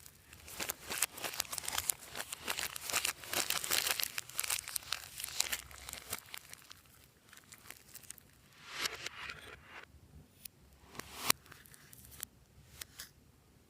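Slime being squished and worked by hand, giving a dense run of crackles and pops for about the first six seconds, then sparser ones, with one sharp loud click a little after eleven seconds.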